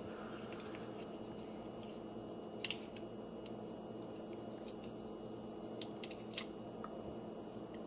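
Faint, scattered clicks of a plastic Transformers action figure's joints and panels being turned and snapped into place during transformation, the loudest a little under three seconds in, over a faint steady hum.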